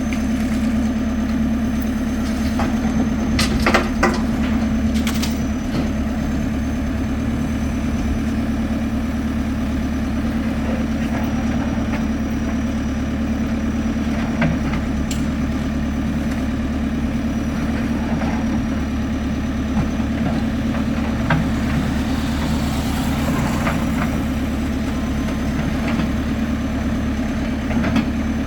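Excavator's diesel engine running steadily, with a few sharp knocks about four seconds in and scattered lighter clanks of the machine working.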